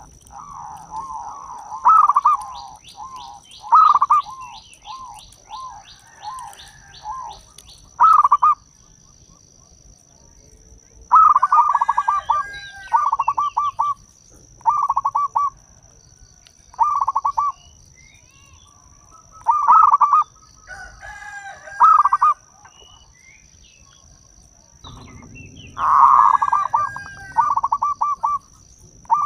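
Zebra dove (perkutut) singing its long cooing song: phrases of rapid, stuttering coos come every couple of seconds, with busier overlapping phrases after the first ten seconds or so.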